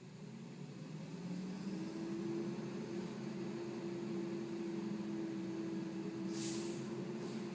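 Mack MR garbage truck with a McNeilus rear-loader body running its packer. The diesel engine speeds up and settles into a steady hum with a hydraulic whine as the compactor cycles. A couple of short hisses come near the end.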